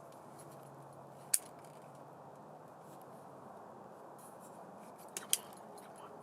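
Steady low hiss of a quiet night recording, broken by three sharp taps: one about a second in and a close pair near the end.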